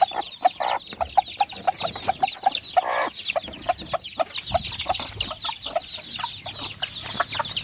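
Free-range native chickens clucking: a steady run of short low clucks, several a second, mixed with many high, short falling calls, and a couple of louder, rougher calls.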